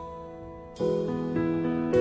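Background music: soft plucked chords, with a new chord struck about a second in.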